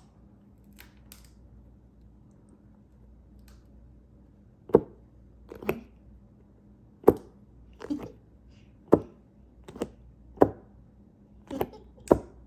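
About ten sharp clicks and knocks at uneven intervals, starting almost five seconds in, from small plastic fidget toys being handled.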